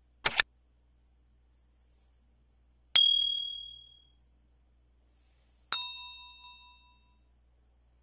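Sound effects of a subscribe-button animation: a quick double click for the screen tap, then a bright single-tone ding about three seconds in, and a richer bell-like chime near six seconds in, each ringing away over about a second.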